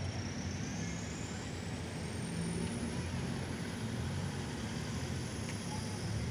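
Road traffic: car and pickup engines running as vehicles move along the road, a steady low hum under a wash of road noise. A faint high whine rises in pitch during the first couple of seconds.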